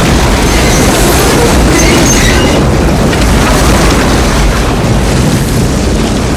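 Film sound effect of a tornado passing overhead: continuous loud wind noise with a deep rumble underneath, and a few brief high-pitched squeals about two seconds in.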